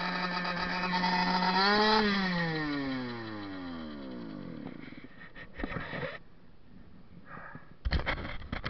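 KTM dirt bike engine running at steady high revs, then rising slightly and winding down, its pitch falling smoothly over about three seconds. In the second half, a few knocks and rustles of the camera being handled.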